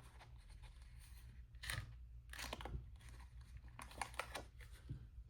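Faint rustling and handling of paper, with a few light taps and clicks.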